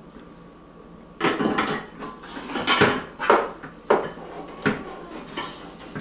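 Metal pots and pans clanking as a baby handles and knocks them about, a quick run of clatters starting about a second in and several sharper single knocks after.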